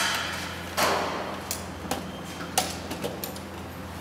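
Hand tools and parts being handled on a metal assembly cart during circuit module assembly: a clattering knock about a second in that fades out, then scattered small clicks and knocks. A steady low hum runs underneath.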